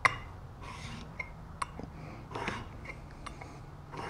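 Cabinet scraper blade being rubbed on a wet 1,000-grit sharpening stone: a few short gritty rasping strokes with sharp clicks between them, the loudest click right at the start. The edge is being ground flat before a hook is burnished onto it.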